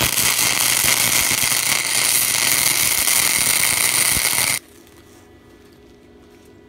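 Wire-feed welder's arc crackling and spitting steadily as it welds a washer onto a steel pin to form the pin's head. After about four and a half seconds the arc cuts off abruptly.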